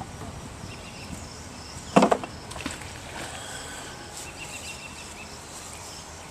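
Outdoor background with faint insect buzzing, broken by a single sharp knock about two seconds in.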